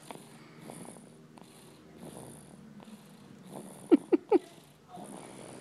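Snoring from a sleeping two-month-old: rhythmic breaths about once a second, each with a hissy rasp. About four seconds in come three short, loud squeaks in quick succession, each rising and falling in pitch.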